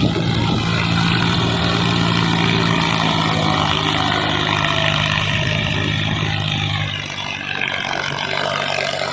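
Tractor diesel engine running hard at a steady speed under heavy load, hauling a loaded trolley through soft sand. It gets a little quieter about seven seconds in.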